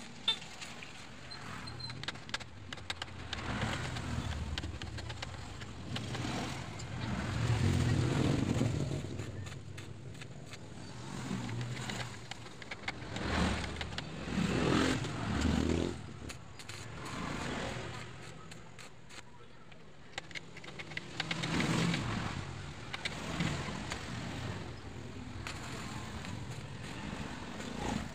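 Stick (arc) welding crackling as weld is laid onto a worn splined shaft on a motorcycle engine case, building the shaft up so new splines can be cut. An engine-like rumble swells and fades a few times underneath.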